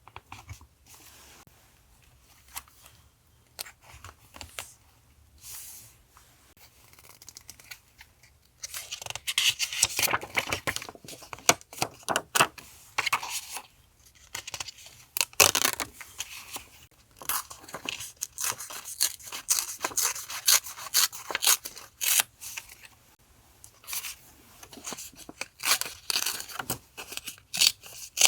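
Paper being handled and torn: faint light rustling at first, then from about nine seconds in a long run of ripping and crinkling strokes.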